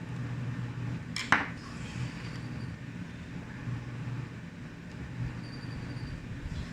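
A single sharp click about a second in, a hard tool or small part knocking against the laptop during disassembly, over a steady low hum.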